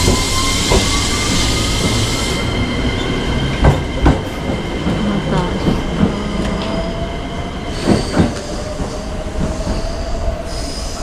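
JR Kuroshio limited express electric train (287 series 'Panda Kuroshio') pulling out of the station. Its whine rises in pitch as it gathers speed, a high hiss stops about two seconds in, and a few clacks over the rail joints come around four and eight seconds in.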